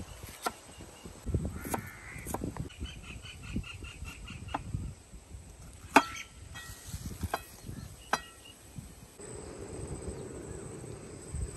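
Birds calling, including a run of quick repeated calls a few seconds in, with scattered knocks and one sharp knock about halfway.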